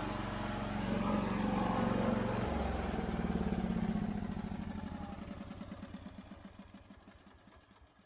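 Onan P220 twin-cylinder engine of a Wheel Horse 520H garden tractor running steadily, then dying away over the last four seconds.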